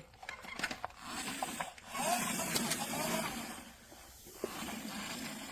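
Hard plastic parts of a toy construction vehicle being moved by hand, rubbing and scraping with scattered small clicks and a couple of brief squeaks about two to three seconds in.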